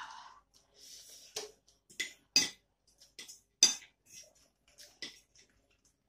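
A metal fork and spoon clinking against a ceramic plate, about half a dozen sharp clinks, with soft eating sounds of noodles between them.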